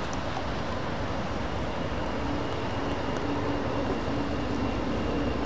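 A steady wash of noise with a low hum coming in about two seconds in: a Sacramento light rail train approaching the crossing.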